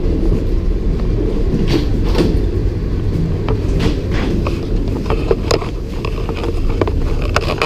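Steady low rumble of a passenger boarding bridge, with irregular clicks and knocks of footsteps and handling while walking through it.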